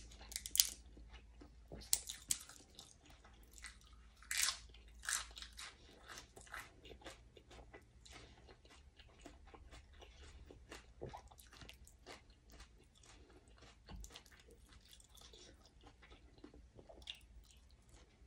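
Close-miked mouth sounds of a person chewing and biting food, with crisp crunches of fresh raw leafy herbs. The loudest crunches come in the first five seconds, then the chewing turns softer and moister.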